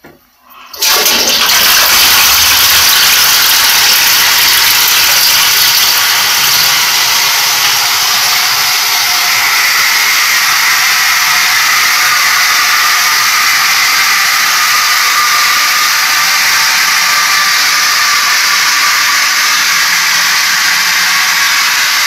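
Toilet flush, pitched down: a rush of water that starts suddenly about a second in and then runs on steadily.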